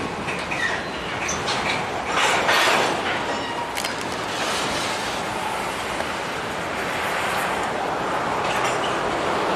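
A freight train rolling past: the steady noise of its steel wheels on the rails, swelling louder about two seconds in.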